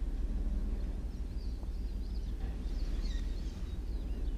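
Small birds chirping in short, high calls several times, over a steady low outdoor rumble.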